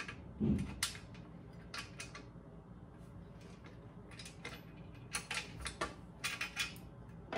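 Small metal clicks and clinks as a washer and nut are fitted by hand onto a bolt through the steel tube frame of a pull-up bar station. They come in scattered groups, with a dull knock about half a second in.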